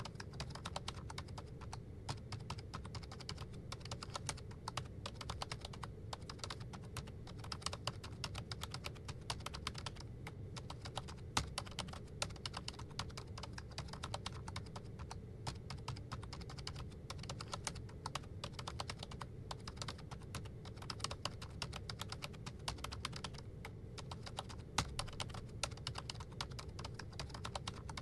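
Fast, continuous typing on a laptop keyboard, many quick irregular key clicks, over a low steady hum.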